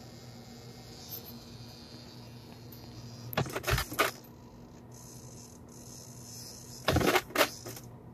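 Steering servo on a Traxxas TRX4 RC crawler chattering: a faint steady buzz, with two louder bursts of rapid rattling, one in the middle and one near the end. The chatter persists and its cause is unknown to the owner.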